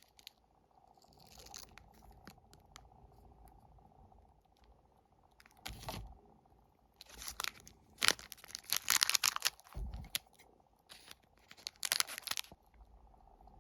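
Individually wrapped wafer packs being torn open and their plastic wrappers crinkled, in several crackly flurries with short quiet gaps between.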